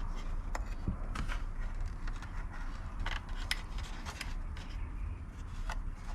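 Scattered small plastic clicks and scrapes of a nylon zip tie being fastened around a wiring bundle, over a steady low background rumble.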